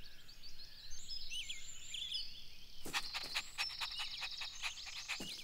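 Quiet background of birds chirping: short, high chirps in the first half, then a steady high note. From about three seconds in, an irregular run of sharp clicks joins them.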